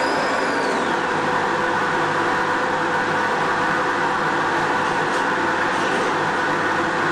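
Steady, unchanging whir of an electric motor on a screen-printing press, the kind of blower that draws the vacuum bed holding the sheet down.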